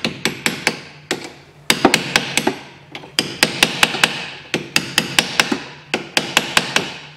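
Hammer rapidly tapping a steel punch, metal on metal, in quick runs of strikes with short pauses between, driving out the pinned brake-hose retaining clip at the front strut bracket of a VAZ 2110.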